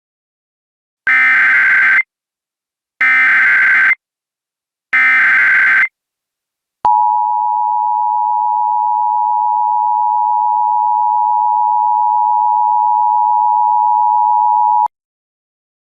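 Emergency Alert System tones: three one-second SAME header data bursts, each a harsh warbling screech about two seconds apart, followed by the EAS attention signal, a steady two-tone 853/960 Hz hum held about eight seconds before it cuts off. Together they mark the start of a new emergency alert broadcast.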